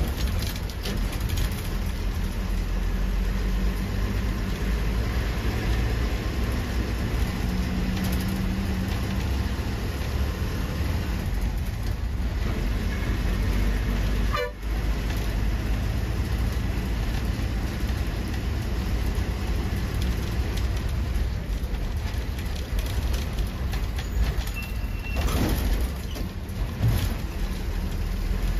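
Bus engine running with steady road rumble as the bus travels. A short horn toot sounds near the end.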